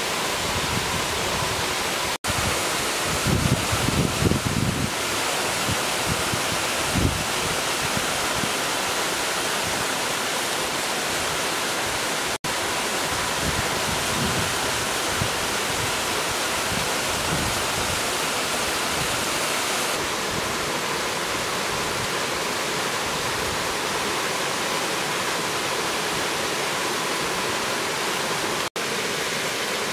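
Steady rushing of river water, an even hiss that breaks off for an instant three times, with a few low bumps in the first several seconds.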